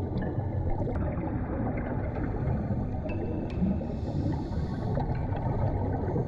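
Muffled underwater ambience: a dull, steady rushing with a few faint clicks.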